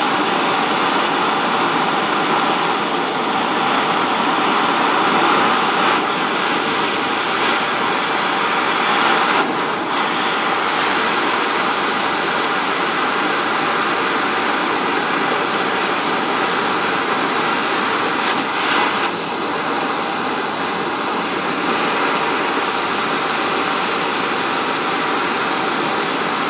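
Handheld blowtorch flame burning with a steady loud rushing hiss as it heats a padlock, dipping briefly twice.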